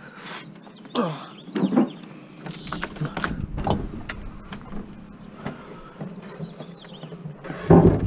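A large refrigerator being slid into a van's cargo area: scraping and knocking of the metal cabinet against the van, ending in a loud heavy thump near the end as it goes in.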